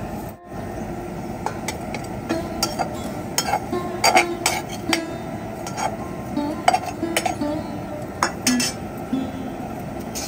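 Metal utensil clinking irregularly against a cooking pot, with soft background music.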